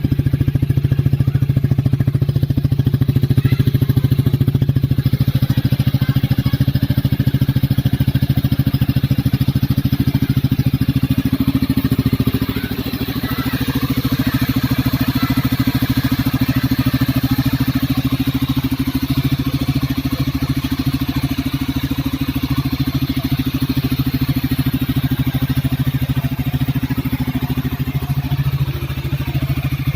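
Honda RS150 motorcycle's single-cylinder engine running steadily at idle through an aftermarket 'Reborn' exhaust canister, with a slight drop in level about halfway through and again near the end.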